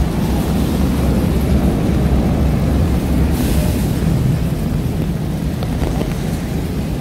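Steady low rumble of wind on the microphone over wet city-street ambience, with a brief hiss a little over three seconds in.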